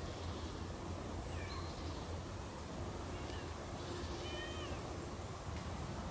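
Siamese cat meowing three times, faint and high-pitched, the longest call about four seconds in, over a steady low rumble.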